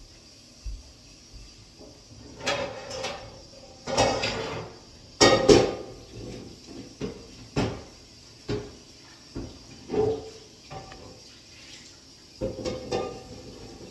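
Kitchenware being handled and set down on a countertop: a run of knocks and short clatters of dishes and utensils, loudest about five seconds in.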